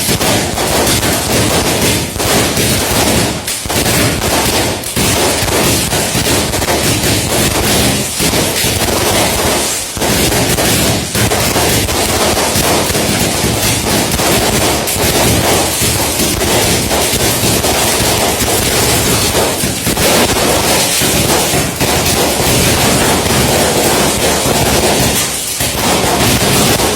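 Fireworks and firecrackers going off in a dense, unbroken crackle of rapid bangs, loud throughout.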